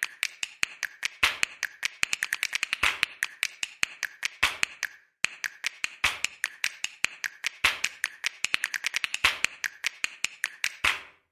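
A rapid, uneven series of sharp clicks, about seven a second, with a brief pause about five seconds in, stopping just before the end.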